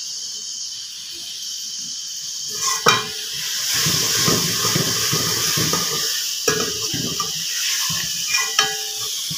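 Sliced onions being handled in a steel colander: the slices rustle and shift, with sharp metal knocks, loudest about three seconds in and a few more near the end, over a steady high hiss.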